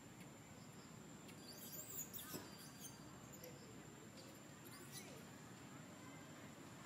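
Quiet outdoor background with a few faint, high-pitched animal squeaks, grouped about two seconds in and once more near five seconds, over a thin steady high whine.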